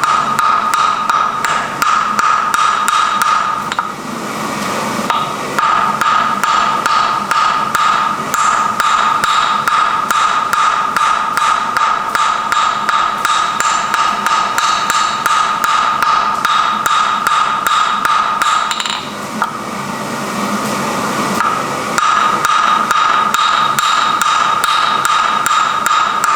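Hammer blows on iron at the anvil while forging, a fast, even series of strikes with a steady metallic ring under them, easing off briefly about four seconds in and again about two-thirds of the way through.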